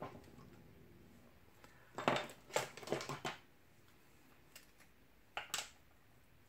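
Hands handling a liquid glue bottle and small paper tabs on a craft desk: a cluster of clicks and taps about two seconds in, and two more sharp taps near the end.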